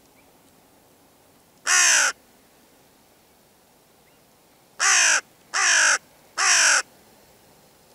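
Hooded crow cawing: four harsh caws, each falling in pitch. The first comes about two seconds in, and the other three follow in quick succession from about five to seven seconds in.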